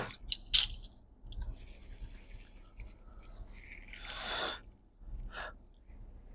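Scratchy rubbing and wiping strokes as a laptop logic board is cleaned by hand with a tissue and brush, with one sharp click about half a second in.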